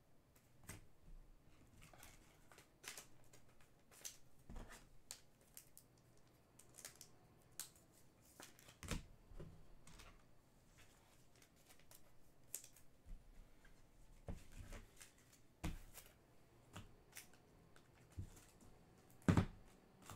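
Trading cards and their packs being handled on a table: scattered soft clicks and rustles at no steady rhythm, with a louder knock near the end.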